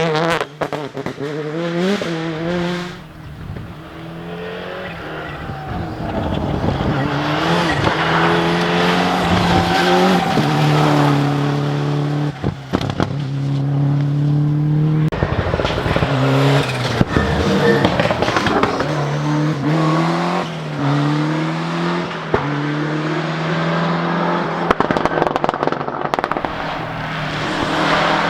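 Rally cars driven hard on a stage. The engines rev up in repeated rising sweeps that break off and drop back as the drivers shift gears or lift off, with occasional sharp cracks.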